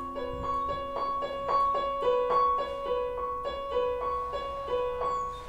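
Electronic keyboard played with a piano-like sound: a slow line of single notes, each left ringing while the next is struck.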